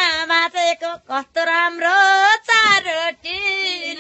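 A woman singing a Nepali ratyauli folk song in a high voice, her held notes wavering, with short breaks between phrases about a second in and again midway.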